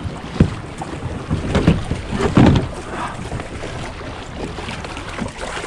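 Small waves sloshing against shoreline rocks, with wind on the microphone and a few dull knocks as the hull of a fishing kayak bumps against the rocks.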